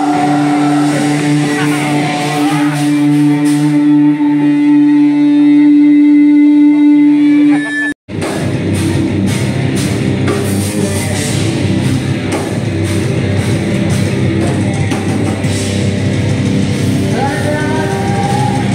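Live rock band played loud through a PA, heard from within the crowd. First a long held note rings steadily over the band, then, after a brief cut, the full band plays with distorted guitars and pounding drums and cymbals.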